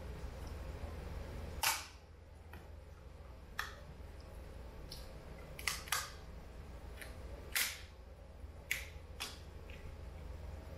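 Cooked lobster shell cracking and snapping as it is broken apart by hand to get at the meat: about half a dozen sharp cracks at irregular intervals over a low steady hum.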